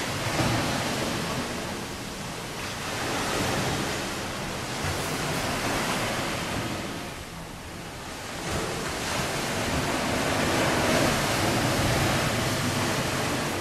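Ocean surf breaking and washing ashore below, a steady rush that swells and eases every few seconds.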